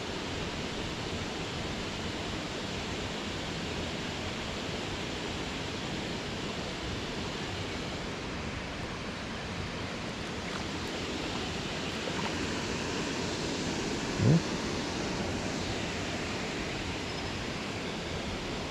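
Steady rush of creek water flowing through a current, with one short rising sound about fourteen seconds in.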